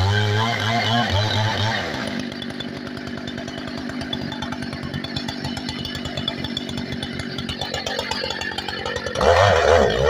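Chainsaw cutting up a deer carcass. It revs high for about the first two seconds, drops to a rapid, quieter putter at idle for several seconds, then revs up loudly again about a second before the end.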